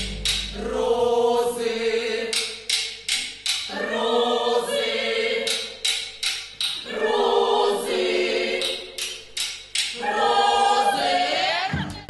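Several women's voices singing long held notes together in four phrases, with sharp percussive hits in the gaps between the phrases.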